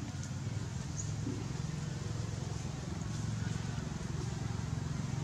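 Steady low drone, with a few faint, brief high-pitched squeaks, one about a second in.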